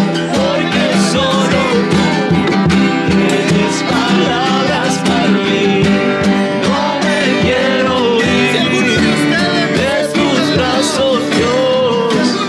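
Music with acoustic guitar, a steady beat and a singing voice.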